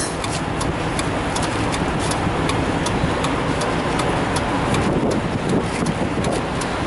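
Steady mechanical running noise with faint, regular ticking, about three ticks a second.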